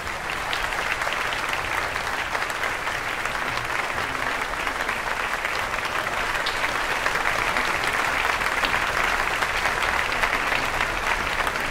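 Audience applauding: dense, even clapping that swells at the start and then holds steady.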